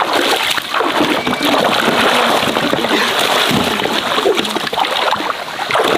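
Muddy shallow pond water splashing and sloshing as people wade through it, lifting their feet and dragging hand nets through the water.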